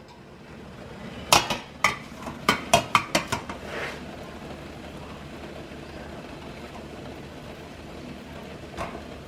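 Metal steamer pot and trays clattering: a quick run of knocks and clanks in the first few seconds as the steamer is handled, then a steady low hiss.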